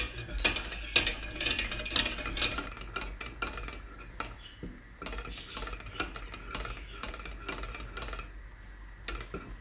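A kitchen utensil stirring in a bowl, with rapid clinks and scrapes against the bowl. The strokes are densest in the first few seconds and become more spaced out later.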